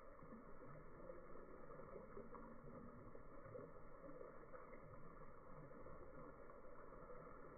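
Near silence: faint, steady outdoor background noise with no distinct sound.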